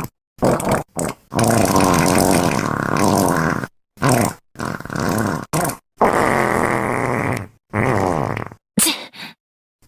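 A string of about ten farting sound effects of varying length, cut apart by sudden silences. Some are pitched and waver up and down, and the longest runs for about two and a half seconds.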